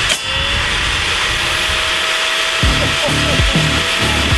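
A table saw runs steadily, and a split second in it throws a wooden block out in a deliberate kickback with one sharp crack. Background music plays over it.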